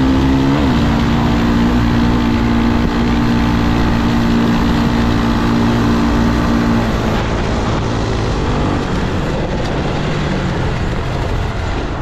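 Honda Tornado 300's single-cylinder engine running at a steady cruise, with a brief dip and rise in pitch about half a second in. The steady engine note fades about seven seconds in, leaving a rougher rumble.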